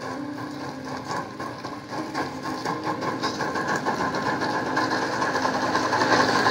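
1:32 scale live-steam model of NSWGR C38 locomotive 3801 running, its exhaust chuffing in a rapid, even beat that grows louder as it comes closer.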